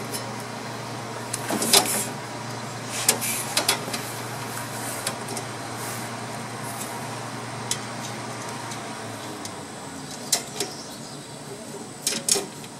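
Headliner panel being shifted and pushed up against the roof of a Chevy Suburban's cab: scattered knocks, taps and rustles, a few sharper ones in small clusters, over a steady low hum.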